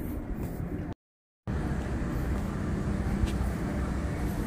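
Wind rumbling on the microphone on an open ship deck, over a faint steady hum. The sound drops out completely for about half a second around a second in.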